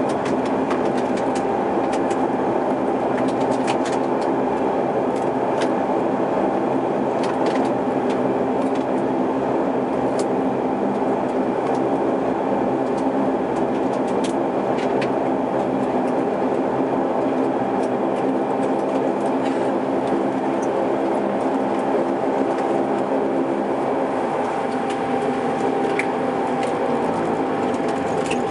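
Cabin noise of a Saab 340B's General Electric CT7 turboprop engines and propellers while the aircraft taxis: a steady drone with a steady high tone over several lower tones, and scattered light clicks. In the last few seconds the lower tones slide down in pitch.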